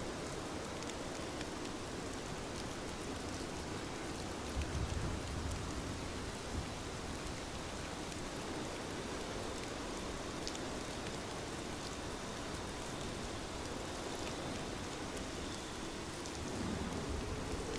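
Steady rain with scattered individual drops ticking. A brief low rumble comes about four and a half seconds in, and another low swell builds near the end.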